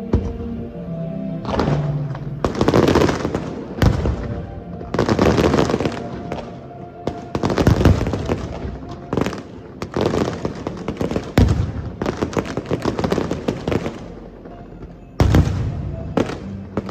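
Aerial fireworks going off: repeated sharp booms of bursting shells with long stretches of dense crackling between them, and two more loud bangs near the end, over music playing underneath.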